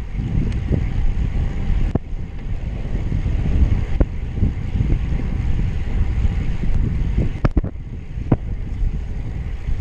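Wind buffeting the microphone of a camera on a moving road bike, a loud low rumble, with several sharp clicks through it.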